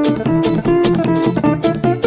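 Music: a plucked guitar plays a quick run of notes over a bass line.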